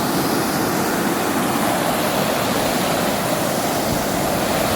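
Mountain river's flowing water rushing steadily.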